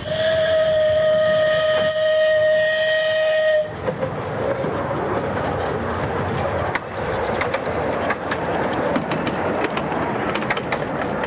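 Narrow-gauge steam locomotive's whistle blown once, a steady note held for about three and a half seconds and cut off sharply. The locomotive and its carriages then roll past with a steady rumble and a rapid clicking of wheels on the rails.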